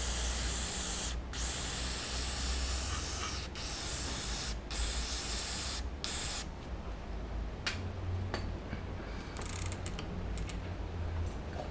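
Cyclo brake cleaner aerosol sprayed through its red extension straw onto a bicycle cassette: long hissing sprays broken by short pauses, growing fainter in the second half.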